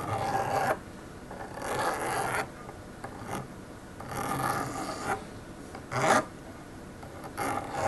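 A small hand file rasping across the end of a coaxial cable's copper centre conductor in slow separate strokes, one every second or two, chamfering and deburring the tip.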